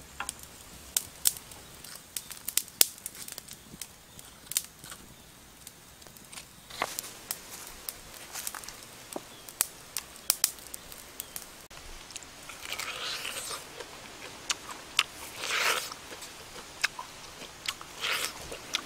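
Sharp, scattered crackles of a wood-ember fire beneath a spit-roasted pig head. In the second half come several longer tearing and crunching bursts as teeth rip into the charred, roasted pig head.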